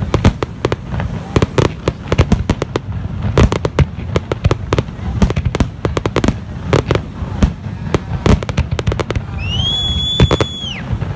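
Aerial fireworks display: many sharp shell bursts going off in quick, irregular succession over a continuous low rumble. Near the end a high whistle slides up, holds one pitch for about a second and a half, and drops away.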